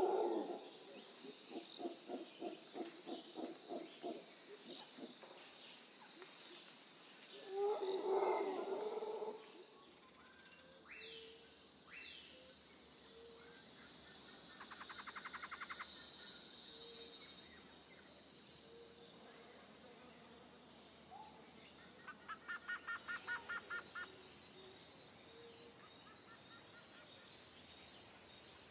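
Cats crying out as they wrestle: a rhythmic run of short calls, about four a second, then a louder, longer cry about eight seconds in. After about ten seconds the background changes, and small birds chirp and trill outside.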